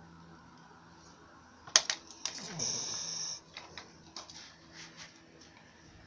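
A sleeping dog snuffling and snorting: a couple of sharp clicks a little under two seconds in, then a short hissing snort with a low falling groan, followed by a few softer clicks.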